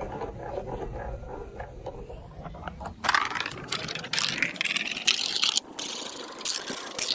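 Marbles rolling along a plastic building-block marble run: a low rolling rumble with small clicks, turning brighter and busier about three seconds in, with rapid clattering clicks.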